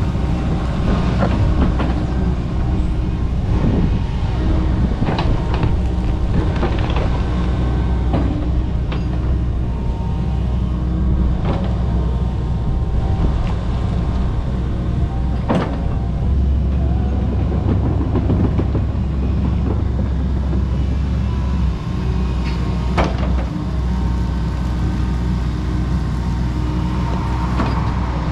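Kobelco SK85 MSR excavator's diesel engine running steadily under working load, with sharp cracks and knocks every few seconds from the machine working through overgrowth; the sharpest comes about 16 seconds in.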